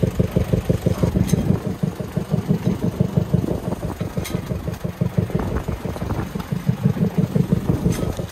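Small inboard boat engine running at idle with a steady, fast low thumping, about five or six beats a second.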